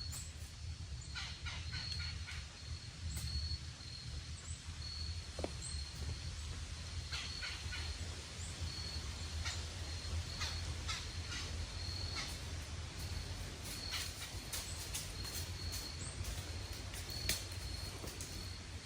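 Woodland ambience: a short, high chirp repeating roughly once a second, with scattered light clicks and ticks and a steady low rumble underneath.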